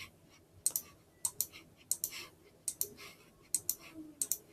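Sharp clicks of a computer pointer button, each a quick press-and-release pair, about one pair a second, as letters are picked one at a time on an on-screen keyboard.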